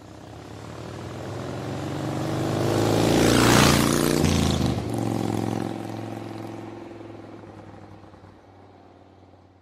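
Engine-like pass-by sound effect under an animated logo: it swells to a loud peak about three and a half seconds in, then fades away.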